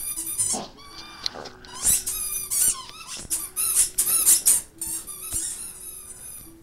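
A dog chewing a squeaky toy, setting off rapid runs of high-pitched squeaks again and again.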